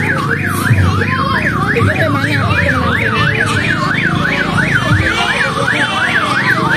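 Electronic siren in a fast yelp, its pitch sweeping up and down about three times a second, over a low steady rumble.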